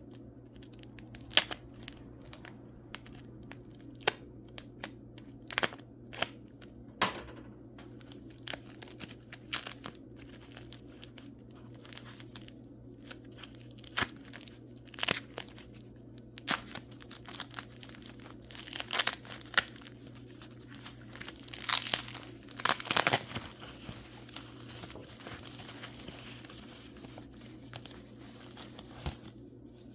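Wrapping paper crinkling and tearing in irregular bursts, with scattered sharp clicks, as wrapped mineral specimens are unpacked; a faint steady low hum runs underneath.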